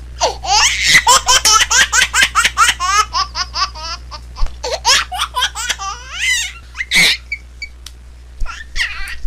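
A small child laughing in a rapid run of high-pitched bursts, about five a second for the first three seconds, then looser and sparser, with one louder squeal about seven seconds in.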